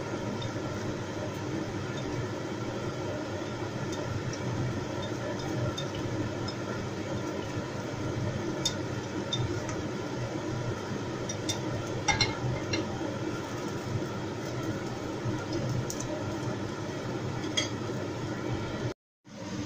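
Utensils clinking now and then against a ceramic claypot as chicken and mushrooms are stirred, with a few sharper clinks in the middle. A steady rushing hum runs underneath, and the sound cuts out briefly near the end.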